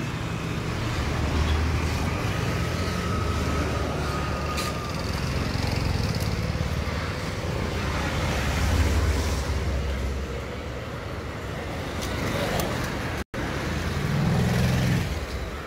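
Street traffic: cars, motorbikes and a small truck passing with a low engine rumble that swells about a second in and again around eight to ten seconds in.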